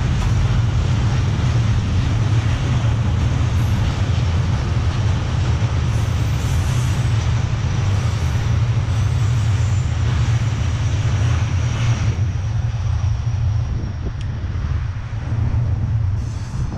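Wind buffeting the microphone and tyre noise from a moving bicycle, a steady loud rumble that eases slightly near the end.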